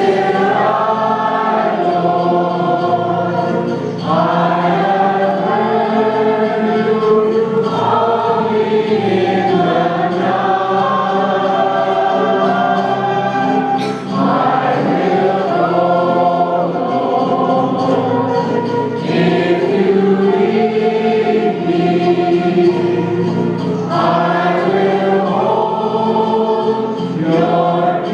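A church choir singing a hymn in phrases a few seconds long, over steady low held notes.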